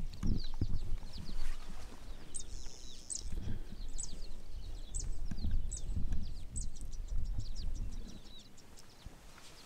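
Wild birds calling with many quick, high, falling chirps, over an irregular low rumbling that eases off near the end.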